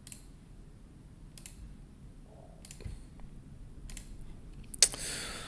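A few faint, sharp computer mouse clicks, about one a second, the last and loudest near the end, followed by a soft rustle.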